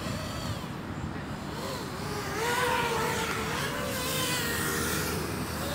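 FPV quadcopter's brushless motors and propellers whining, the pitch wavering up and down with the throttle. It grows louder a little over two seconds in.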